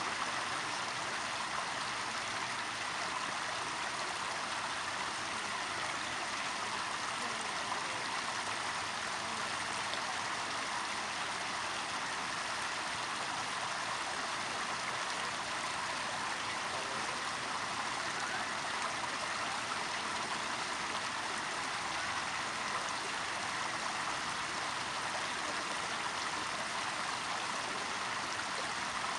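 Stream water running steadily, an even rushing noise with no breaks.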